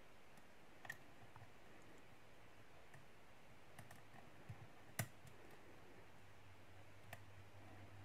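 A handful of faint, sparse clicks from a lock pick working the pin tumblers of a Lockwood 334C45 padlock under tension, the sharpest about five seconds in. The picker is feeling each pin for counter-rotation and getting no feedback.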